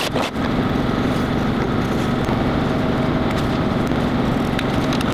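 Steady drone of a workshop machine's electric motor running, with a couple of sharp knocks right at the start.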